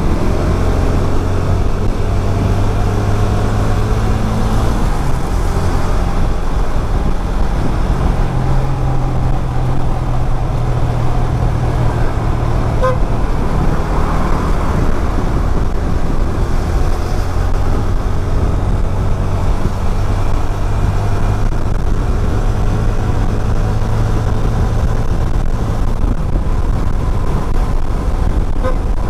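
Motorcycle engine running under way, heard from the rider's neck-mounted camera along with wind rush and tyre noise. The engine note steps up and down a few times as the speed changes.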